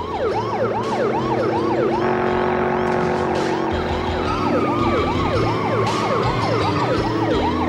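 Police car siren in a fast yelp, its pitch rising and falling about three times a second, over car engines running hard. The siren drops back for a moment about two seconds in while the engine sound comes up.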